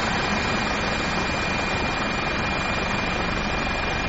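Steady engine noise: an even rush with a thin, steady high whine through it.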